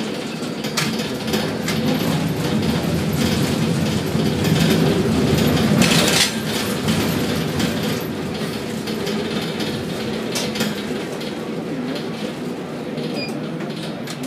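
Container gantry crane machinery running: a steady mechanical rumble and clatter with scattered clicks and knocks, growing louder to a peak about six seconds in.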